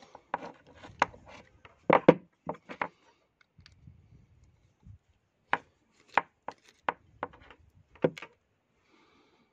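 Clicks and light metallic taps of a screwdriver working a jet out of a GM12F carburettor body, with small metal parts knocking against each other. A quick run of taps comes in the first three seconds and another cluster about halfway through.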